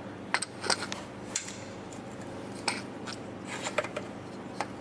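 Scattered light clicks and knocks of hands handling parts, about seven in all, over a steady low hum.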